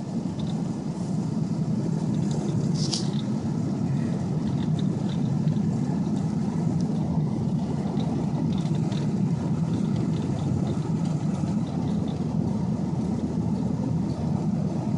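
2002 Ford F-250 pickup driving through unplowed snow: a steady, even low rumble of engine and tyres.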